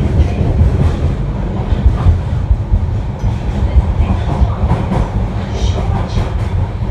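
Osaka Metro 30000 series subway train running, heard from inside the passenger car: a steady low rumble of wheels on rail, with scattered clatter from the track.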